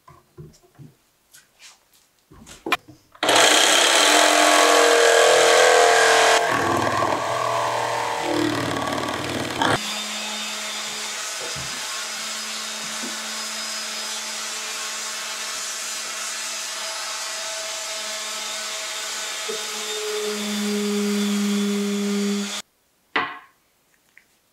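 A power tool runs loudly on wood for several seconds, then a random orbital sander on a dust-extraction hose runs steadily against the end of an ash board. The sander stops suddenly near the end.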